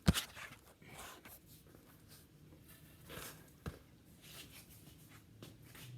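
Mostly quiet, with a single sharp knock right at the start, a lighter tap a little after halfway, and faint rustling in between.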